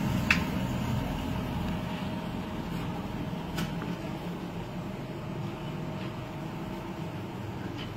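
Low, steady room rumble with a couple of faint ticks.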